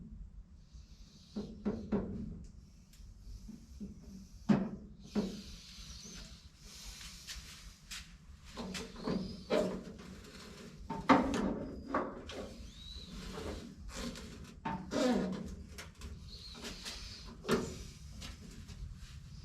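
Irregular clunks, knocks and scrapes of hand work on a 1955 Chevrolet 210's door and its window hardware, with a short squeak a little past the middle.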